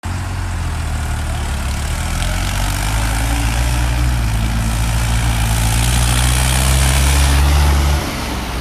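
Tractor diesel engine running steadily close by, growing a little louder from about three seconds in, then dropping off suddenly near the end.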